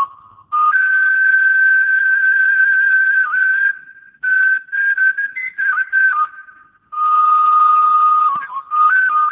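Whistling: a high, pure tone held in long steady notes that jump between a few pitches, in phrases of one to three seconds with short breaks between them.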